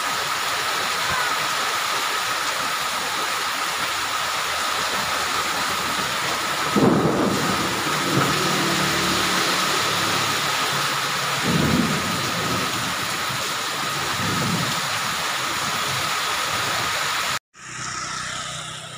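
Heavy rain hissing steadily on a paved street, with low rumbles that swell and fade about a third of the way in and twice more later. Near the end the sound cuts out for a moment and the rain comes back quieter.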